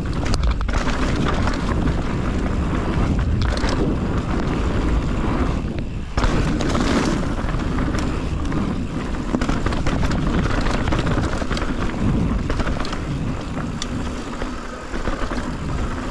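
Mountain bike riding down a dirt trail: wind rushing over the camera microphone, tyres rolling over dirt and rock, and the bike rattling with frequent knocks. A sharp knock comes about six seconds in.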